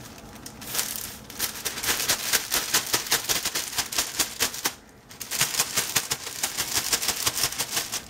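A plastic zip-top bag holding a piece of raw chicken and dry breading mix being shaken hard, making a fast, rhythmic rustling rattle. The rattle stops briefly about five seconds in, then starts again.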